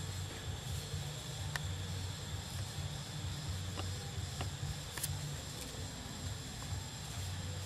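Steady outdoor ambience: a high, even insect drone with an uneven low rumble underneath and a few faint clicks.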